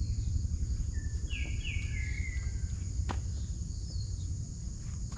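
Outdoor insect drone, a steady high buzz, over a low rumble. About a second in a bird gives a few short falling calls, and a single sharp click comes about three seconds in.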